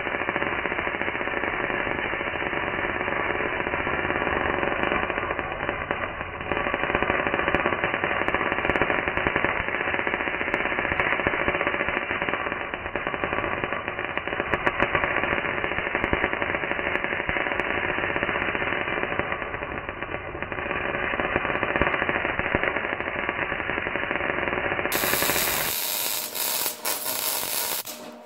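MIG welding arc sputtering and crackling continuously on rusty steel pipe, slowed down so that it sounds dull with no high end. Near the end it switches to normal speed, with a sharper, brighter crackle, before the arc stops.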